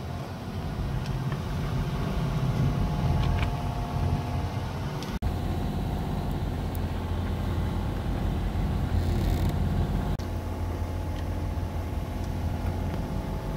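A sailing yacht's inboard engine running steadily under way, a low drone, with a momentary break about five seconds in.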